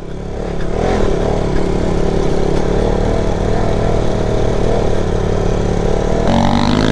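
Motorcycle engine running under way on a rough off-road track, then revving with a rising pitch about six seconds in.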